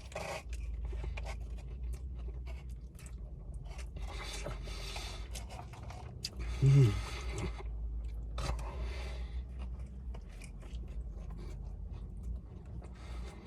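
Close-up chewing and crunching while eating a Chicken Big Mac burger, in uneven bouts. A brief vocal sound comes about seven seconds in.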